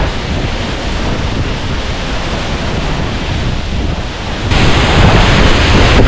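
Steady rushing noise of a 70-metre waterfall crashing into its pool at close range, with the heavy spray and wind buffeting the microphone. The noise gets louder and brighter about four and a half seconds in.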